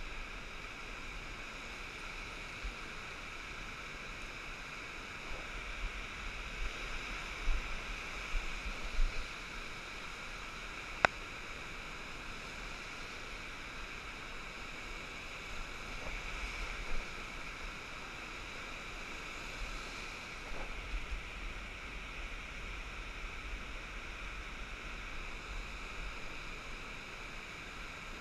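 Steady wash of surf on a sandy beach, with wind rumbling on the microphone now and then and a single sharp click about eleven seconds in.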